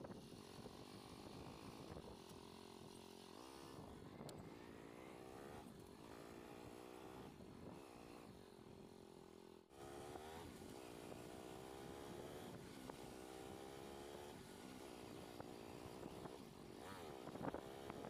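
Motorcycle engine running faintly as the bike is ridden, its pitch rising and falling again and again as the throttle opens and closes. The sound cuts out for a moment about ten seconds in.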